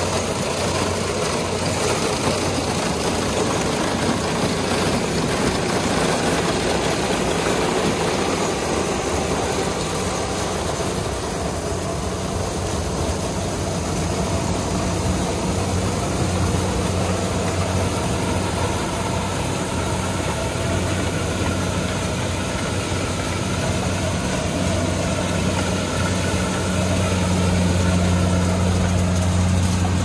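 Kubota DC-70 Plus combine harvester running steadily as it harvests corn: a continuous diesel engine hum mixed with the noise of the cutting header and threshing. The hum grows stronger about halfway through and again near the end.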